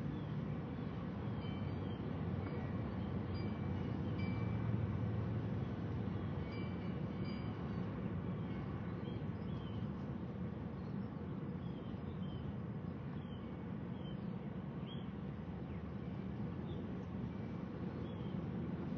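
Steady low rumble of outdoor noise, with short high chirps scattered through it.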